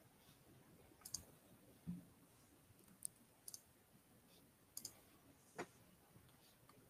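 Near silence with a handful of faint, sharp clicks scattered across the few seconds, some in quick pairs.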